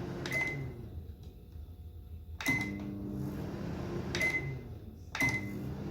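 DeLonghi microwave oven being tested after a button repair: four keypad presses, each a click with a short high beep. Between presses the oven's low running hum starts and stops.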